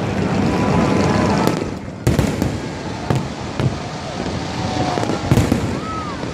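Fireworks display: a continuous din of crackling and bursts, with sharp bangs about two, three and five seconds in.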